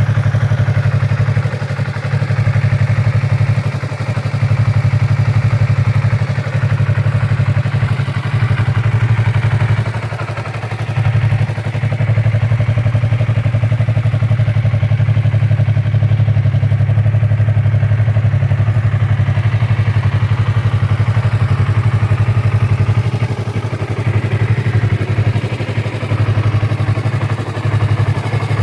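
2015 Yamaha R3's parallel-twin engine idling steadily on its stock exhaust, with a few brief dips in level.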